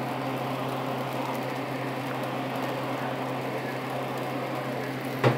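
Steady mechanical whirring hum with a low tone, like a kitchen fan running, under the faint sound of fried rice being stirred in a nonstick pan with a wooden spoon. A single knock comes near the end.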